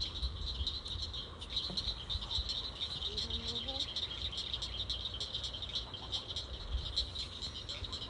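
Steady high-pitched chorus of calling swamp animals, a dense chirring made of many rapid pulses, over a faint low rumble.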